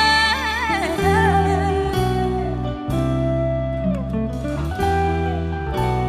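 Live band playing a Mandarin pop ballad: a singer's held, wavering note ends about a second in, then an electric guitar carries the melody over bass notes that change about once a second.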